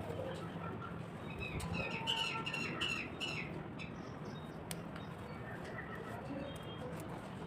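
A bird chirping, a quick series of short falling chirps about one and a half to three seconds in, over a steady low hum.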